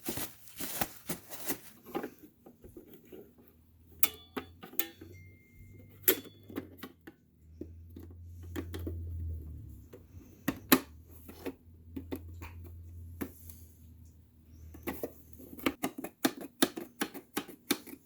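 Scattered clicks and knocks of the plastic housing of a Kenmore canister vacuum being handled and screwed back together, thickest at the start and near the end. A low steady hum runs through the middle.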